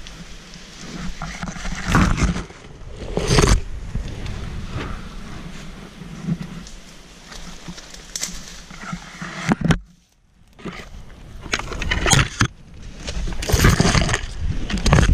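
Rustling and scraping of someone pushing quickly through dense ferns and branches, with footsteps and rough rubbing and jolting noise on a body-worn camera's microphone, in uneven bursts. The noise drops out briefly about two-thirds of the way through.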